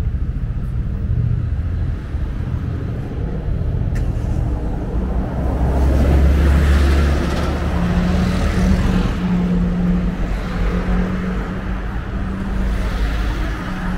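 Road traffic on a city street: a steady low rumble with cars passing close by, the loudest about halfway through and another near the end.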